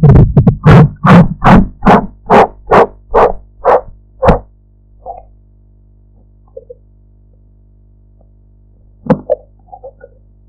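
Blood-pressure cuff being pumped up with its rubber inflation bulb, heard through a stethoscope: a quick run of about eleven loud thumps that slow slightly. After that come a low steady hum and a few faint, irregular knocks.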